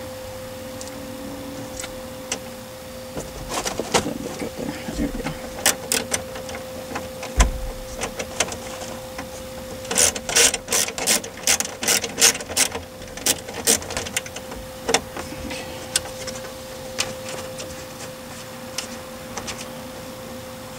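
Sharp clicks of a hand tool undoing a 7 mm bolt that holds a Saturn S-Series instrument cluster: scattered at first, then a quick run of about three clicks a second for a few seconds around the middle, then scattered again. A faint steady hum runs underneath.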